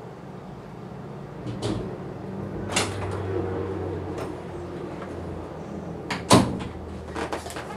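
Scattered knocks and clunks of someone moving and handling things, the sharpest knock about six seconds in, over a low steady hum.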